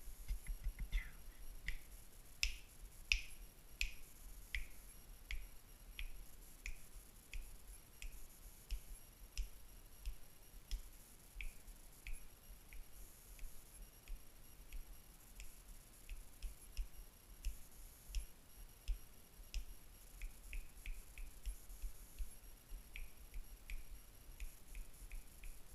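Fingers snapping again and again as a home hearing test for a newborn baby. The snaps come a little more than once a second and bunch into quicker runs near the end.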